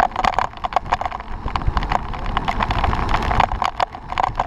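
Wind rushing over the microphone of a bicycle-mounted camera at speed, with road noise from the tyres and many irregular clicks and rattles.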